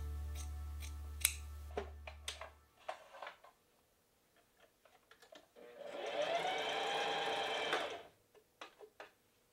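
Singer electric sewing machine running for about two seconds near the middle, its motor speeding up and slowing as it stitches cloth, with a few light clicks around it. Before that, a handful of sharp snips from shears cutting fabric.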